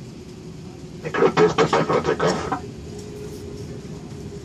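Steady airliner cabin hum. About a second in, a loud burst of a person's voice in rapid, even pulses lasts about a second and a half.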